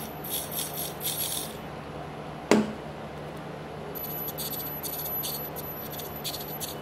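Tiny 1:100 scale RC car's drive motor and gears whirring in short bursts while the car is held in the hand, with a thin high whine from about four seconds in. A single short falling tone about two and a half seconds in is the loudest sound.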